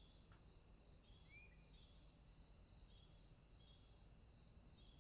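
Near silence: faint background hiss with high chirps repeating evenly.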